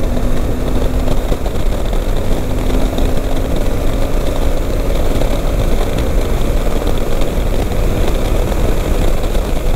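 Loud, steady wind rush with the drone of a Suzuki V-Strom 800DE's parallel-twin engine underneath, the motorcycle riding at over 160 km/h on the highway.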